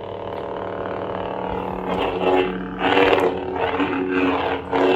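Lightsaber sound board playing through a 28mm speaker: a steady electric hum after ignition, which swells in several surges about a second apart from around two seconds in, as swing sounds do when the hilt is moved.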